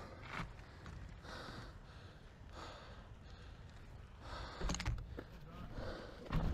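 A cyclist breathing hard in a steady rhythm, about one breath a second, over a low rumble.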